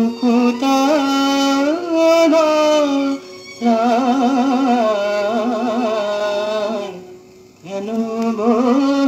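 Bengali film song playing from a vinyl record on a record player: a wordless melodic passage of long held notes that waver and glide between pitches, broken by two short pauses, about three seconds in and about seven seconds in.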